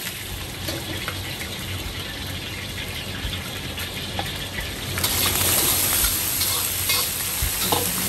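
Hot oil sizzling in a wok with Sichuan peppercorns frying in it. About five seconds in the sizzle gets louder and brighter as chopped dried chillies go into the oil, and a metal ladle stirs them.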